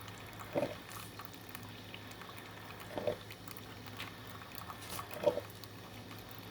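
Black+Decker Brew 'n Go single-serve drip coffee maker brewing, giving a short gurgle about every two and a half seconds over a faint steady hum as it pushes hot water through the grounds.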